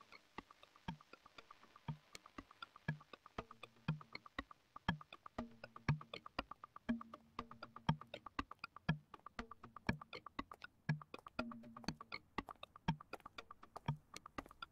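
Quiet, sparse electronic music: a low kick about once a second under fast clicking ticks, with short low held notes every few seconds.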